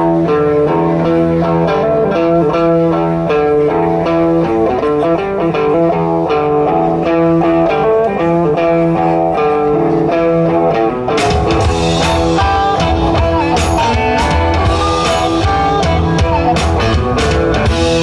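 Live blues-rock band opening a song: an electric guitar riff over bass for about eleven seconds, then the drums and the full band come in.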